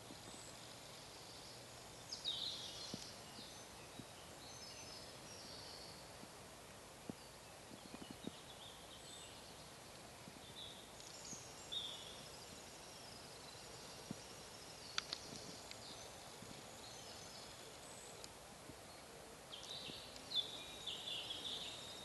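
Quiet outdoor background hiss with short snatches of high-pitched songbird song that come and go a few seconds apart, the loudest near the end.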